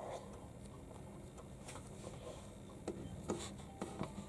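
Fingers quietly working a small piece of soft modelling clay: faint rubbing, with a few small ticks in the second half.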